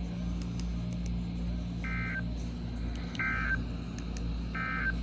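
Three short bursts of EAS SAME digital data tones, the warbling two-tone modem-like code sent by a NOAA Weather Radio transmitter, about 1.3 seconds apart. Three short bursts at the close of a warning are the End-of-Message code. A steady low hum and hiss of the radio reception run underneath.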